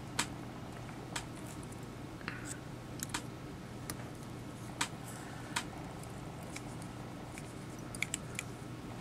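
Scattered small, sharp clicks and ticks from hand work at a fly-tying vise: thread being wrapped and tensioned from the bobbin as bucktail is bound onto a tube fly. A few clicks come close together near the end, over a steady low hum.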